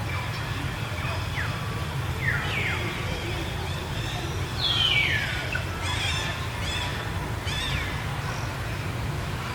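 High animal calls that glide quickly down in pitch, repeated several times. The longest and loudest comes about halfway through, and a few short chirps follow. A steady low rumble runs underneath.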